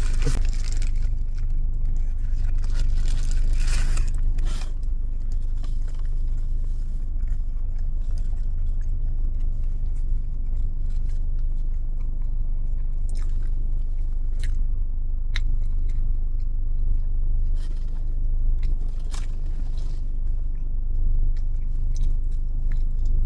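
A person chewing and crunching fast food, with short clicks and crackles now and then, over a steady low rumble like an idling car engine.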